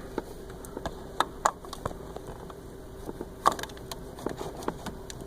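Steady hum of a small submersible pump running in a bucket of descaling solution with the heater's flush valves still shut, so nothing is flowing. Scattered sharp clicks and knocks sound over it.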